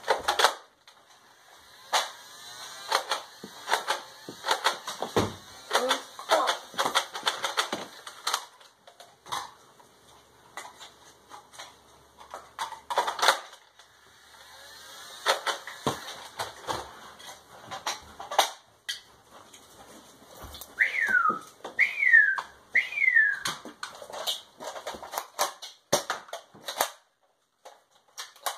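Plastic clicks and clacks of Nerf foam-dart blasters being primed and fired, in clusters with short pauses. About three quarters of the way through come three short falling whistle-like tones.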